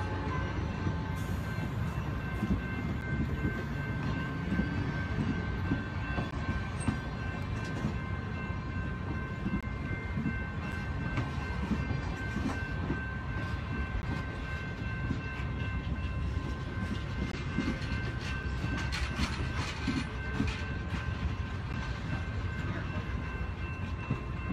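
Passenger railcars rolling steadily past on the rails: a continuous low rumble of steel wheels, with scattered clicks and knocks as the trucks cross rail joints.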